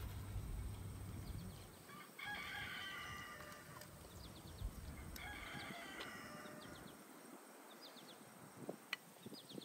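A rooster crowing twice, faint, each crow lasting one to one and a half seconds, the second starting about five seconds in.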